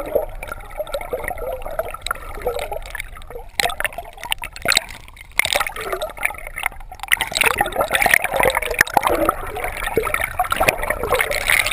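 Water gurgling and bubbling heard through a camera held underwater, with many short clicks and knocks, which grow busier and louder in the second half.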